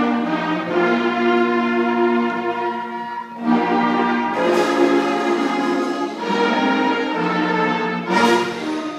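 Elementary school concert band of saxophones, clarinets, trombones and other winds playing held chords that change about every three seconds, with two sharp hits about four and a half and eight seconds in.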